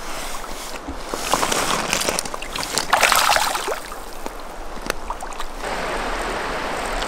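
Splashing in shallow river water as a caught lenok is let go, in irregular bursts loudest about three seconds in. After about five and a half seconds, steady flowing river water.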